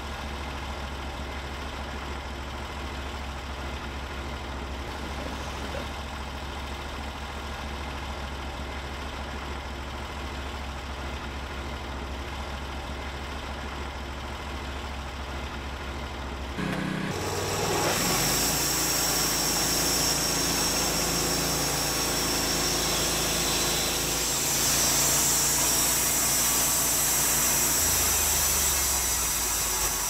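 Norwood HD38 portable band sawmill's engine idling steadily, then revved up a little over halfway through, getting louder. The band blade then cuts through a log, adding a high-pitched hiss.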